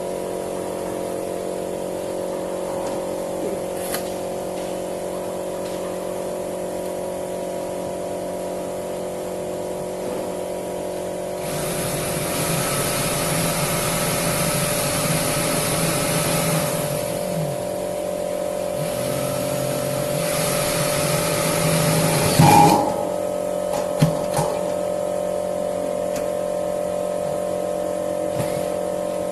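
A steady machine hum throughout, broken by two long stretches of louder motor noise, about five and four seconds long, past the middle. A few short knocks and clatters follow near the end.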